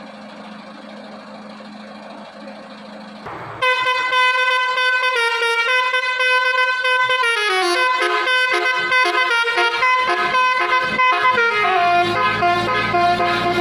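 Bus telolet horn, a multi-tone musical air horn, playing a loud tune of stepping notes with a falling slide partway through. It starts about three and a half seconds in, after a low steady hum.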